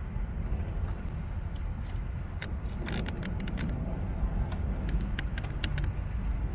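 Steady low rumble, like wind buffeting the microphone, with a run of irregular sharp clicks from about two seconds in to near the end.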